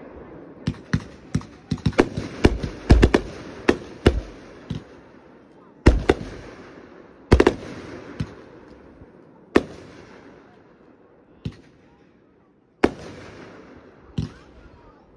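Aerial firework shells bursting in the sky: a quick run of bangs and crackles in the first four seconds, then single booms every one and a half to two seconds, each trailing off in an echo.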